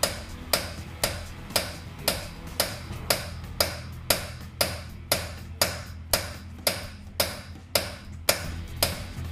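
Hammer striking a 24-point socket and extension bar to drive the socket onto the stripped, broken-off head of an anti-theft locking wheel bolt. Steady, even blows of metal on metal, about two a second, each with a short ring.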